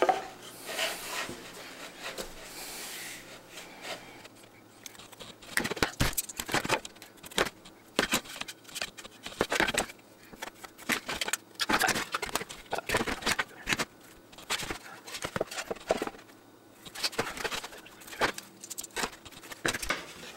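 Pencil scratching marking lines on wood against a metal square, among scattered clicks and knocks of the wood and square being handled.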